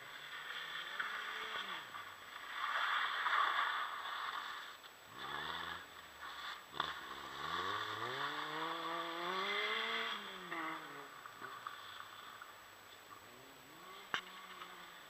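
Rally hatchback's engine revving up and down as the car slides around a tyre marker, with its tyres scrubbing on the pavement. The tyre noise is loudest about three seconds in.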